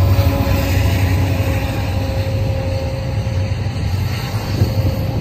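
Union Pacific SD70M diesel locomotives' EMD 16-cylinder two-stroke engines rumbling as they pass and move away, with a steady whine that fades near the end. The sound eases into the rolling of flatcars loaded with welded rail on the track.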